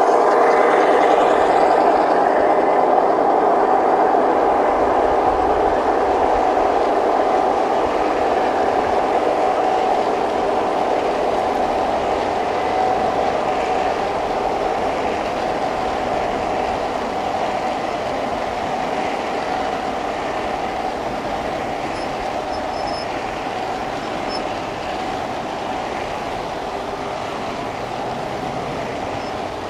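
G scale model freight train rolling past on outdoor garden track: a continuous rolling noise with a steady hum, slowly growing fainter as the locomotives move off and the long line of loaded flatcars goes by.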